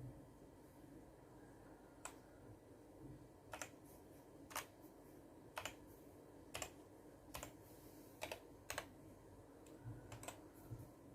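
Single key presses on a Vortex VX9 Pro mechanical keyboard with Outemu switches, clicking about once a second with a few quick double presses, as the backlight modes are stepped through.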